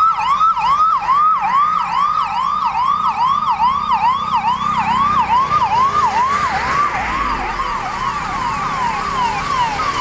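Electronic sirens on a convoy of passing emergency vehicles, a fast rising-and-falling yelp about two and a half times a second, with a second siren overlapping in the second half. Engine and tyre noise from a bus and a truck driving past rises about halfway through.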